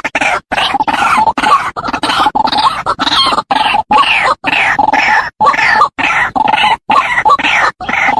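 White-breasted waterhen (ruak-ruak) calling: a rapid, repeated series of loud 'ruak ruak' croaking notes, several a second, separated by brief gaps.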